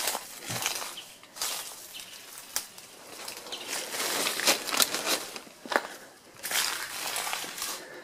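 Footsteps through dry leaves and undergrowth, with leaves and branches rustling as they brush past, and a few sharp cracks of snapping twigs.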